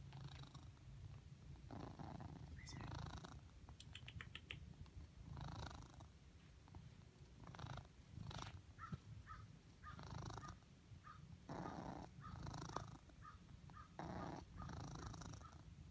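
Ragdoll cat purring in its sleep: a low, steady rumble that swells with each breath every two seconds or so, with short high squeaks in the purr, most often in the second half.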